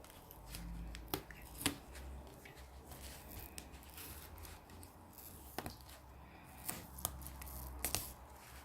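Scattered small clicks and light scraping from hands and a tool working on a smartphone's back, as the tape covering its screws is peeled away.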